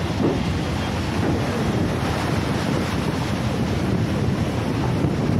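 Wind buffeting the microphone over the steady rush of choppy sea water swirling past bridge piers.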